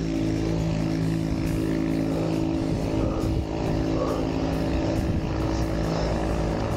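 Wind rushing over the helmet or handlebar camera's microphone during a road-bike ride at speed, a steady low rumble, with a hum of several held tones underneath that shift pitch every second or two.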